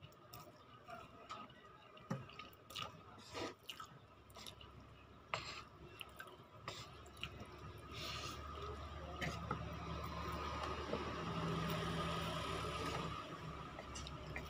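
A person slurping and chewing instant noodles, with many short wet mouth clicks and smacks. About halfway through, a louder, longer stretch of slurping begins and lasts several seconds.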